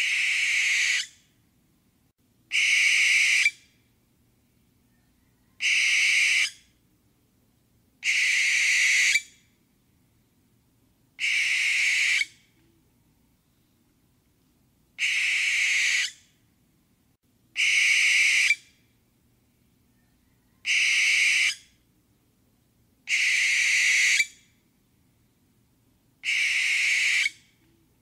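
Barn owl giving ten harsh screeches, each about a second long, spaced two to three and a half seconds apart.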